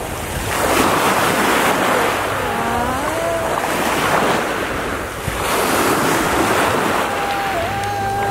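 Small sea waves washing in the shallows, with wind on the microphone. A brief wavering voice sound comes about three seconds in, and a short held one comes near the end.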